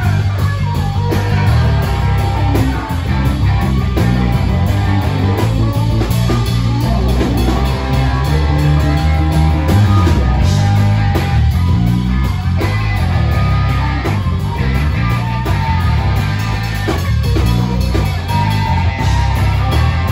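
Live rock band playing loudly: electric guitars over bass and drums, with a strong low end.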